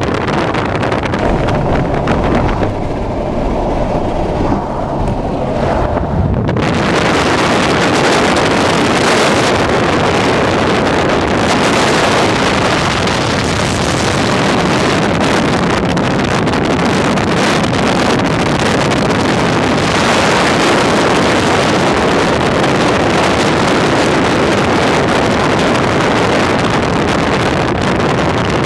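Steady rushing wind and road noise from a moving vehicle, with wind buffeting the microphone; the rush becomes much louder and fuller about six and a half seconds in.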